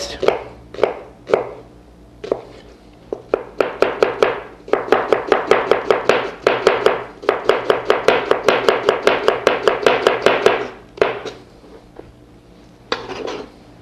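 Chef's knife finely dicing a red onion on a cutting board. A few spaced cuts are followed by quick, even chopping at about five strokes a second from about five seconds in until about eleven seconds, with a short pause in the middle. Near the end the blade scrapes briefly across the board.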